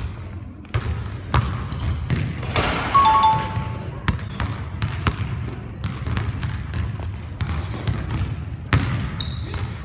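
Basketball bouncing off a gym wall and a hardwood court in separate knocks, with a few short, high-pitched sneaker squeaks on the floor.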